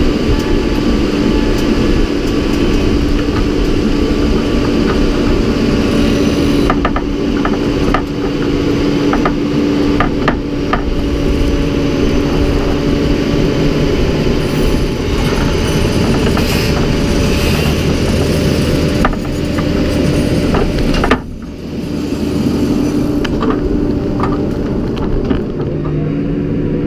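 Loader tractor engine running steadily while moving snow, with a run of knocks and clunks from about seven to eleven seconds in. The engine's note shifts about halfway through.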